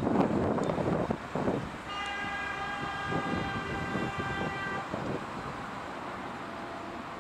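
A Siemens class 541 electric locomotive's horn sounds one steady note for about three seconds, starting about two seconds in. It sounds over the rumble and clatter of freight wagons rolling on the rails, which is loudest in the first second and a half.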